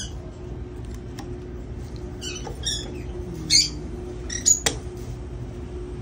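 Lovebirds giving several short, sharp squawking calls in the second half, along with one sharp click, over a steady low hum.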